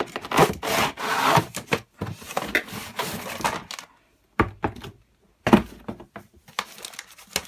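Cardboard toy-set box being opened and handled: several seconds of cardboard scraping and rubbing, then a couple of dull knocks and small clicks.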